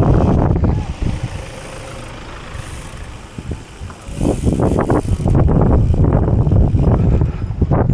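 Irregular low rumble of a gravel bike being ridden over a rough dirt track, with wind buffeting the microphone; it eases off after about a second and comes back louder at about four seconds in.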